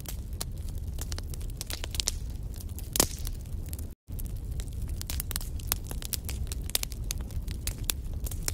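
Wood fire burning in a fireplace: logs crackling with many small snaps over a steady low rumble of flame, and one louder pop about three seconds in. The sound cuts out for a split second about four seconds in.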